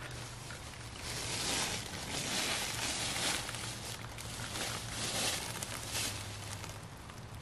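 Dry fallen leaves rustling and crunching in a series of short bursts as a cat steps and paws through them.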